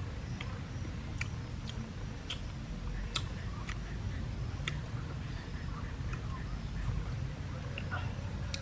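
Roasted shrimp shells crackling and snapping as they are peeled apart by hand: irregular crisp clicks every half second to a second, over a low steady rumble.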